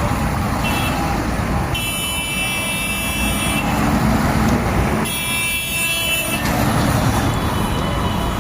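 Heavy road vehicles' engines running steadily, with a brief horn toot and two longer horn blasts of about a second and a half each.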